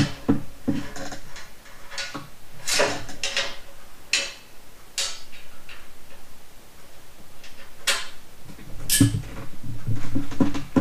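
Cordless impact driver driving bolts into a steel mower frame in short separate bursts, with a longer run near the end, among clinks and clanks of metal parts being handled.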